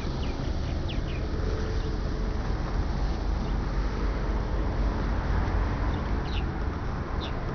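A steady low rumble with a few short, high bird chirps: a cluster about a second in, then single chirps around six and seven seconds in.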